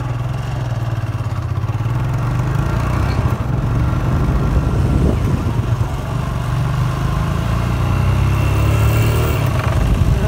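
Motorcycle engine running as the bike is ridden along at a steady pace, a low, even drone.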